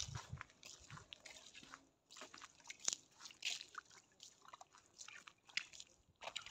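Faint, irregular footsteps on a wet path mixed with clothing rustle, a few short scuffs a second.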